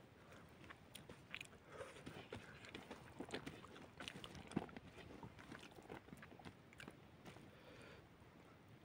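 A person chewing a mouthful of rice and boiled chicken, eaten by hand: faint, irregular wet clicks and chewing sounds.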